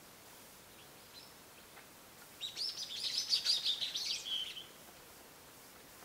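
A bird gives a rapid, high-pitched chattering call for about two seconds, starting a little over two seconds in and ending on a short held note.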